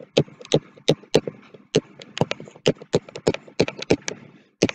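Stylus tapping and scratching on a tablet surface during handwriting: an irregular run of sharp clicks, several a second, with faint scraping between them.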